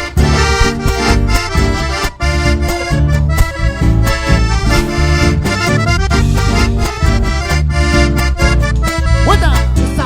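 Live cueca band playing an instrumental passage between sung verses: an accordion carries the tune over a bass line and a steady, driving percussive beat.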